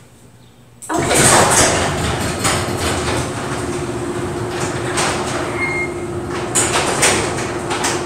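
Garage door opener running and a sectional garage door rattling as it rolls up its tracks, starting about a second in. It makes a steady hum with scattered clanks and knocks.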